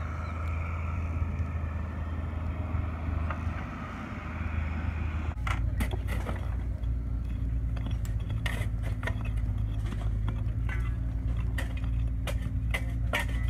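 Hand tools clinking, knocking and scraping in rock and ash debris during digging by hand, many short sharp strikes from about five seconds in. A steady low engine hum runs underneath throughout.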